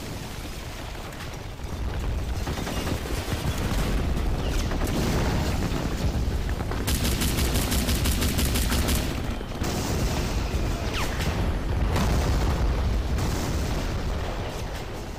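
Battle sound effects of gunfire and booming explosions over a heavy low rumble. About seven seconds in comes a fast, even burst of machine-gun fire lasting about two seconds.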